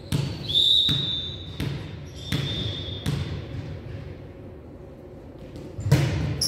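Basketball being dribbled: five sharp bounces about two-thirds of a second apart, with two brief high squeaks among them, then a pause and a louder bounce near the end.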